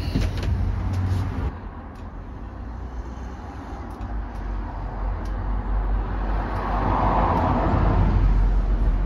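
Road traffic rumbling outside, with one vehicle passing: its noise swells in the second half and peaks about eight seconds in.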